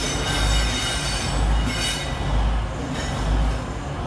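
A string of Freightliner Class 66 diesel locomotives rolling slowly by, their wheels squealing high on the rails over a low rumble. The squeal fades out about halfway through.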